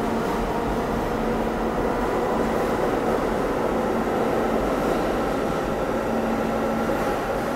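R46 subway train pulling out of an underground station, its cars running past close by with a steady rumble and a hum of motor tones.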